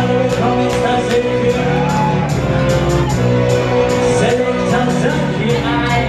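Dub reggae played through a sound system, with heavy sustained bass and a steady drum beat, and a vocalist singing over it.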